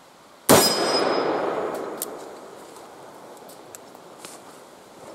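A Dan Wesson Supermag .357 Maximum revolver firing one shot about half a second in: a sharp crack followed by a long echo that fades over about a second and a half.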